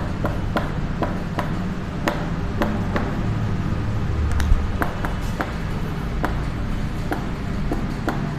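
Chalk tapping and clicking against a chalkboard as words are written: irregular short clicks, about two a second.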